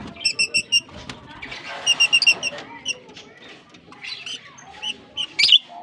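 Lovebirds chirping, with two quick runs of about five sharp, high cheeps, one near the start and one about two seconds in, and scattered chirps over a busy background of bird chatter.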